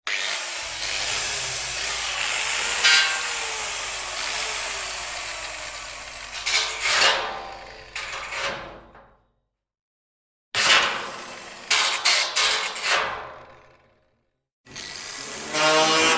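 Angle grinder grinding metal, its motor whine sinking and climbing again as the load changes. It winds down about nine seconds in. After a second of silence comes a shorter burst of grinding that dies away, and after another short silence the grinder starts up again near the end.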